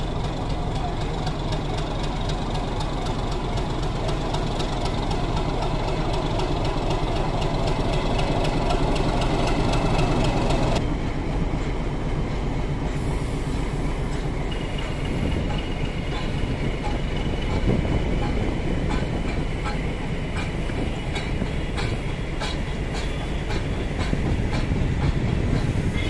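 YDM-4 metre-gauge diesel locomotive running at low speed with a steady engine hum. From about the middle on, regular wheel clacks over rail joints as the train moves slowly.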